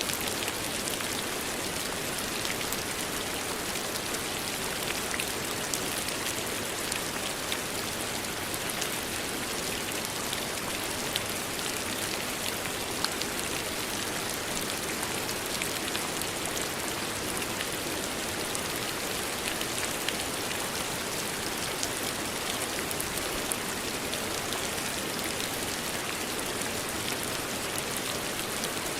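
Steady rain falling, a dense even hiss with many fine drop ticks.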